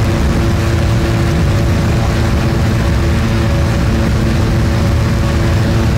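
Ultralight aircraft's engine and propeller running at a steady pitch, a constant low drone.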